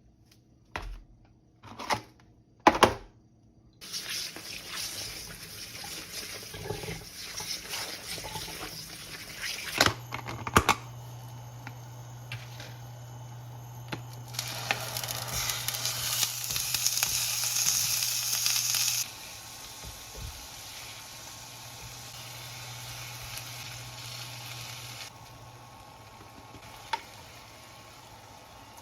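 Kitchen cooking sounds: a few sharp knocks, then a steady hiss of food sizzling or water running, over a low hum that starts about ten seconds in. The hiss is loudest about halfway through and softer towards the end.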